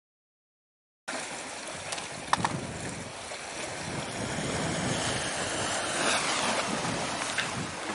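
About a second of dead silence, then steady wind noise on the microphone mixed with the wash of the sea, with a couple of sharp clicks about two seconds in.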